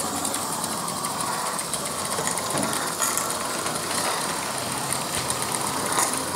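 Regner 'Emma' live-steam 0-4-0T model locomotive running along the track: a steady hiss laced with fast, fine ticking, with a sharper click near the end.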